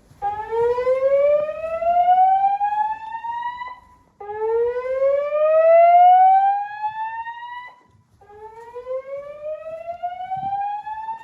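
Fire alarm voice-evacuation speakers sounding the slow whoop tone: three rising whoops, each sweeping up in pitch for about three and a half seconds, between repeats of the recorded evacuation message.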